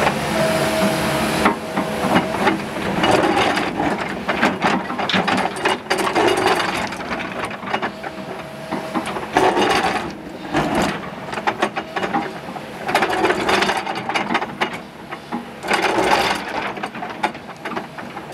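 Kobelco hydraulic excavator's toothed steel bucket digging into stony soil: rocks and gravel crunching and clattering against the bucket in repeated spells, over the excavator's engine running.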